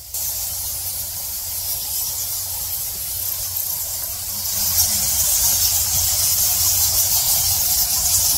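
Dense, continuous high-pitched squeaking and echolocation calls from a huge roosting colony of Geoffroy's rousette fruit bats, setting in abruptly and growing louder about halfway through.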